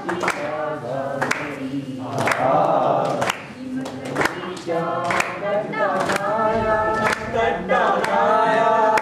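A group of voices singing together without instruments, with hand claps keeping the beat about once a second.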